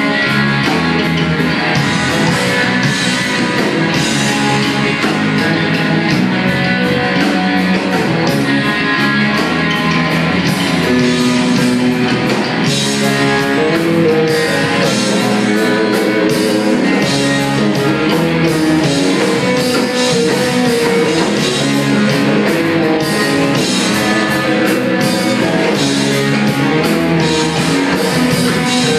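Live rock band playing loudly: electric guitars and bass over a steady drum-kit beat, heard from the audience in the club.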